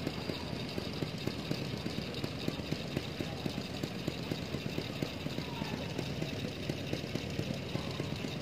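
An engine idling steadily, with a rapid, even knocking beat over a low hum.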